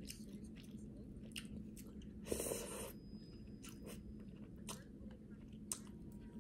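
A person chewing food close to the microphone, with scattered small crunches and clicks and a brief louder noise about two seconds in.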